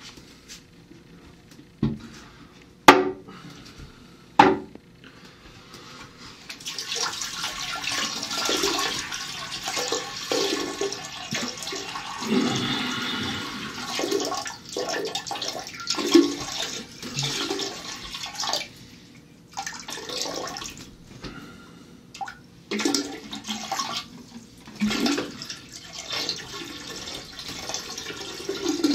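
A few sharp knocks, then water starts running about six seconds in and keeps running and splashing unevenly, swelling and dipping, in a small tiled room.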